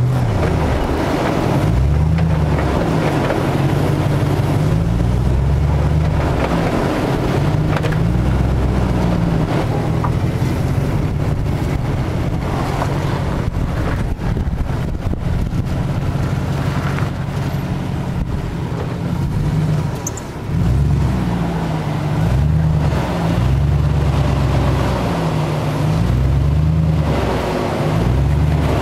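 Jeep Grand Cherokee WJ's engine working at crawling speed off-road, the revs rising and falling again and again as the throttle is worked over the rutted ground.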